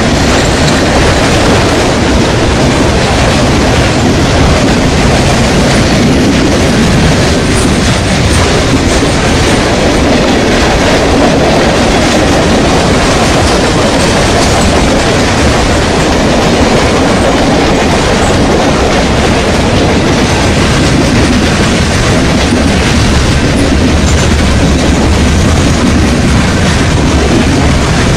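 Norfolk Southern freight train rolling past close by, its cars' wheels clattering steadily over the rails. The sound is loud and even throughout.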